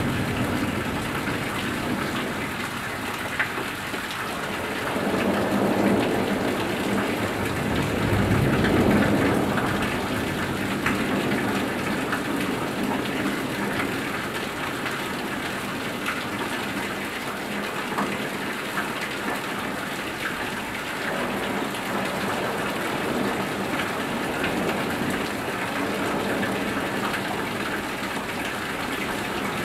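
Heavy thunderstorm rain, steady and dense, with roof runoff pouring and splashing close by at the house's drain corner. A low rumble of thunder swells about five seconds in and again around nine seconds.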